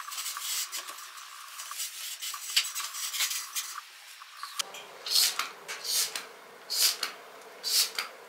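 Kitchen cleaning sounds: a few seconds of dense scrubbing and rubbing, then, after an abrupt change about halfway through, four or five separate clinks and clatters of dishes or utensils being handled and set down.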